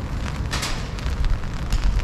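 Rain falling and dripping: many small drop ticks over a steady low rumble, with a brief louder hiss about half a second in.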